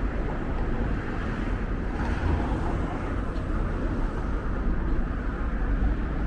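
Steady low rumble of vehicle and road noise, even throughout with no distinct events.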